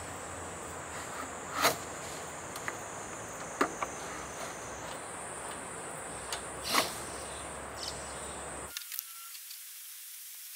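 A steady high insect drone with a low hum underneath, broken by a few sharp knocks from hand work on the wrapped wall of a truck camper; three of the knocks are loud. Near the end, the drone and hum cut off abruptly.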